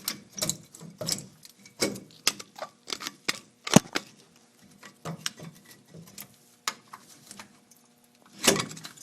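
Screwdriver prying against a Chevy S10's rear disc-brake caliper to push it over, with irregular metal clicks and clanks. The loudest knocks come about four seconds in and near the end.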